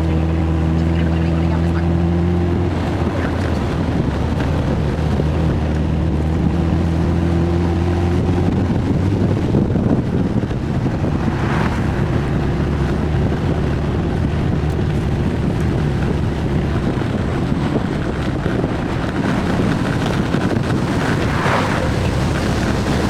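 1966 Triumph Spitfire's 1147cc four-cylinder engine running at a steady speed on the road, with wind on the microphone. The engine's steady note is clearest for the first several seconds, then is partly buried under wind and road noise.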